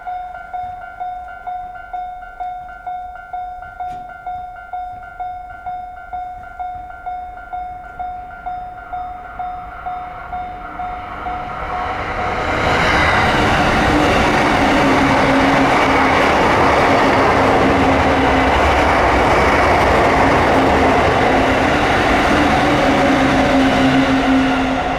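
Japanese level-crossing alarm (JR standard single-tone bell) ringing in even pulses about twice a second. About halfway through a train passes over the crossing, and its loud running noise with a steady low hum covers the bell until near the end.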